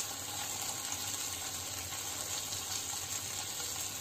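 Grated ginger, chopped garlic and green chilli sizzling steadily in hot oil in a nonstick pan, a continuous hiss with fine crackling.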